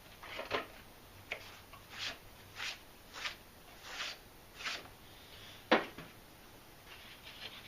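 Surface being wiped clean in a series of short back-and-forth strokes, about one and a half a second, then a single sharp click.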